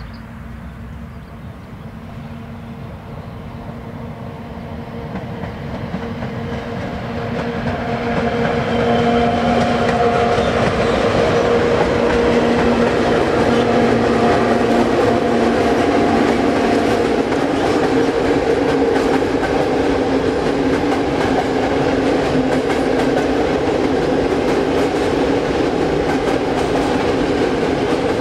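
A PKP class EU07 electric locomotive hauling a container freight train past, growing louder over the first eight seconds or so as it approaches. Then the container wagons roll by with a steady rumble and clattering wheels on the rails. A steady hum runs through the first half and stops about halfway through.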